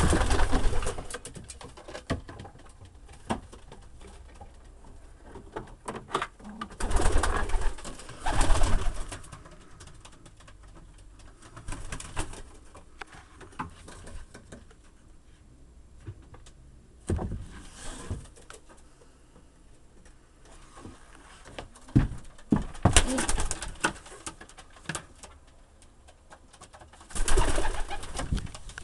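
Racing pigeons cooing in a loft, broken every few seconds by irregular loud rustling bursts.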